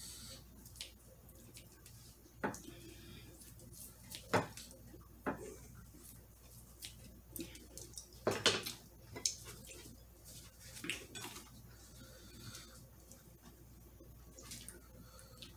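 Kitchen scissors snipping grilled carne asada, with scattered clicks and knocks against the plate and tray and the soft mouth sounds of eating. The loudest knock comes about eight seconds in.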